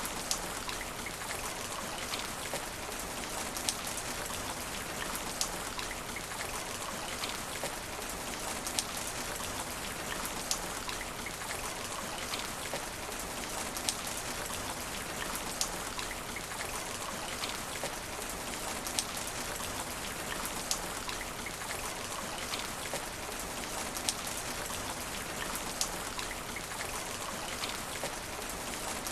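Steady rain falling on asphalt: an even hiss with scattered sharper drop impacts.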